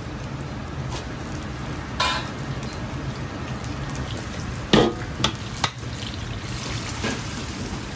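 Coated lamb slices and red pepper oil-blanching in a wok of hot oil: a steady, vigorous bubbling sizzle. About five seconds in, a metal ladle clanks against the wok three times.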